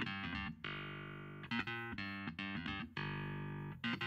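Background music of plucked guitar notes, each ringing out and slowly fading before the next.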